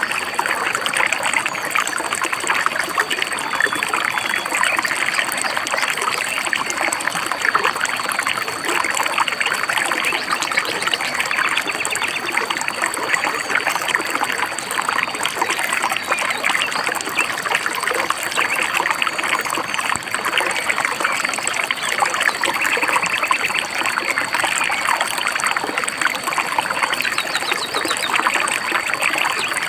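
Shallow stream babbling and trickling over stones in a steady, continuous rush, with a few faint high bird chirps now and then.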